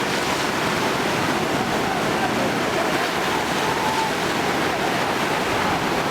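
Steady rushing of floodwater, a continuous even noise without breaks.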